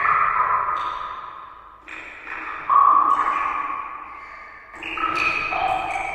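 Water drops falling one after another, each a ringing ping at its own pitch that fades slowly into the next; about half a dozen drips, in clusters about two seconds apart.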